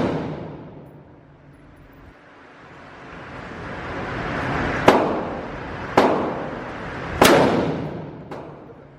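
Gunshots at a shooting range: three shots in the second half, the first two about a second apart and the third a little over a second later, each followed by a long echoing tail.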